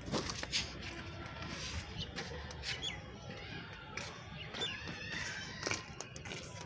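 Outdoor yard background with scattered small clicks and a few short bird chirps.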